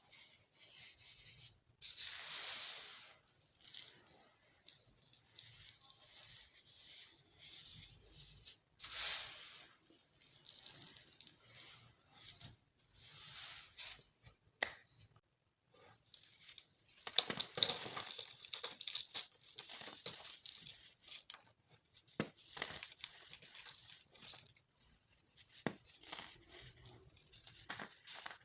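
Dyed baking soda being crushed: irregular crunching and crumbling, with a few sharp cracks and brief pauses.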